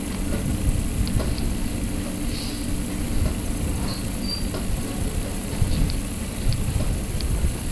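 Cabin sound of a KiHa 40 diesel railcar under way: a steady diesel drone and the rumble of wheels on track, with a few faint, light high ticks.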